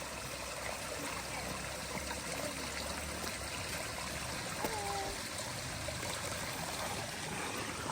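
Stream of water running steadily along a mountain trail, an even rush of flowing water.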